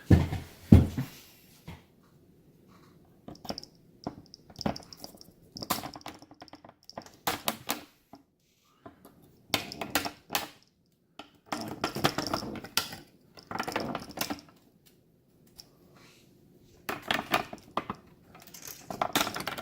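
Irregular clicks, taps and light clatter of small hard parts being handled, in scattered clusters with short quiet gaps.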